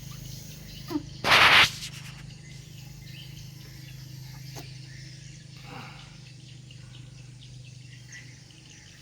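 Outdoor ambience with a steady low hum and a few faint bird-like chirps; a loud, brief rush of noise comes about a second in.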